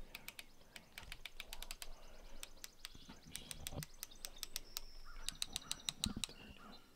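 Rifle scope elevation turret being dialled up by hand, a rapid, uneven run of small sharp clicks as it is turned from 21 to 37 MOA.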